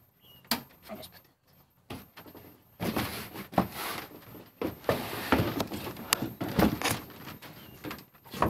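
Close rustling and handling noise as people move about on a wooden playset deck, with scattered sharp clicks and knocks. It is sparse for the first couple of seconds and grows busier from about three seconds in.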